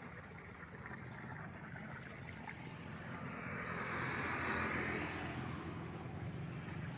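A motorbike going by on the road: its engine hum swells to its loudest about four to five seconds in, then eases off.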